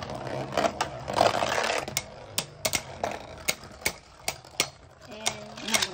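Two Beyblade Burst spinning tops whirring on a plastic stadium floor after launch. For the first couple of seconds they grind against each other, then they knock together in sharp clacks about three times a second.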